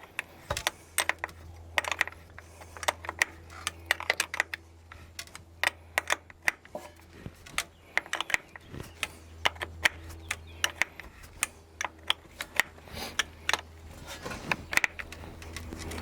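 Metal hand tools clicking and tapping against tractor parts in quick, irregular strokes, over a steady low hum.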